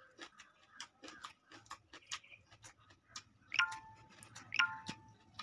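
Quiet eating sounds: wet chewing clicks and fingers mixing rice on a steel plate. Two ringing metallic tings come about a second apart in the second half.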